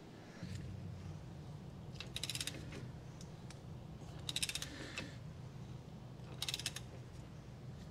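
Socket ratchet clicking in three quick runs as it is swung back and forth on a leveling screw under a heavy lathe's base, lowering the machine's high back side onto its leveling pad.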